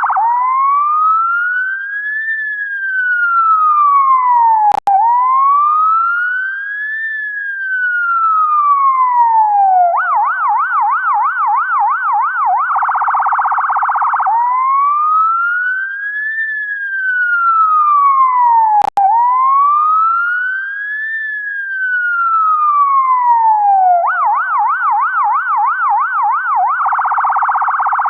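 UK ambulance siren cycling through its tones: two slow wails rising and falling, then a fast yelp, then a very rapid warble, the whole pattern repeating about every 14 seconds. A brief click and dropout cuts in at the low point of a wail about 5 seconds in and again about 19 seconds in.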